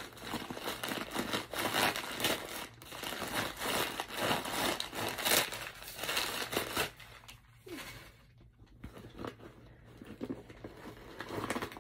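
Crumpled stuffing paper crinkling and rustling as it is pulled out of a backpack, in dense stretches of crackle with a quieter lull about two-thirds of the way through.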